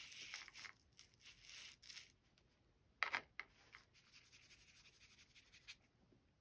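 Faint, scratchy strokes of a paintbrush on watercolor paper, with one brief louder swish about three seconds in.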